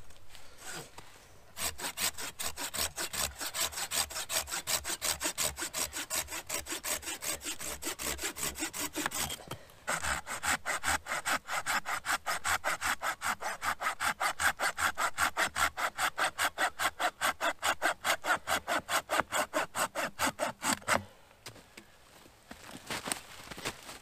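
Folding pruning saw cutting wood with quick, even back-and-forth strokes, in two runs: first through a fallen log, then, after a brief break about ten seconds in, louder through a curved branch. The sawing stops about three seconds before the end.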